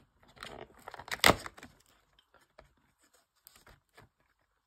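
Cardboard door of a chocolate advent calendar being pushed and torn open by fingers: a short rustle, then one sharp rip about a second in, followed by a few faint clicks and taps.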